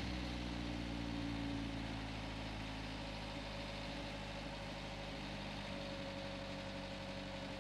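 Car engine idling steadily on a chassis roller dynamometer while its ignition is checked. Its pitch sinks slightly over the first two seconds, then holds steady.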